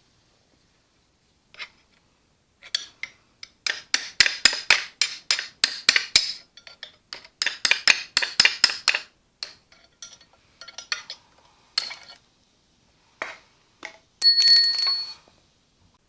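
Metal tools and parts clicking and clinking in quick runs of small knocks, with a short bright metallic ring about fourteen seconds in.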